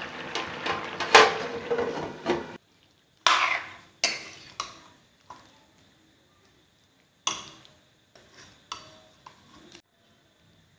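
Chicken and potato curry sizzling in a metal wok while a metal ladle stirs it and clinks against the pan. After a sudden cut, a metal spoon scrapes and knocks against the wok about nine times, with silence between the strokes.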